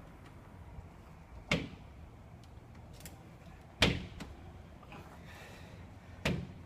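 Three sharp knocks, roughly two and a half seconds apart, the middle one the loudest.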